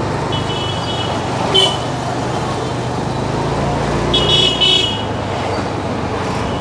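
Street traffic heard while riding on a motorbike: a steady low engine and road rumble, with short high-pitched vehicle horn toots about a second in and a louder double honk about four seconds in.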